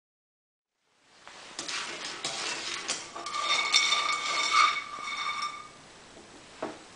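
Dried turban squash seeds dropped into a small nonstick frying pan and spread by hand, clicking and clattering against the pan, with a ringing tone partway through. It starts about a second in and settles to a faint hiss, with one more knock near the end.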